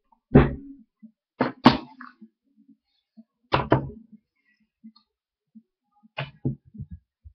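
Sharp thumps or knocks close to the microphone, in irregular groups: one loud thump, then two quick pairs, then a faster cluster of lighter knocks near the end.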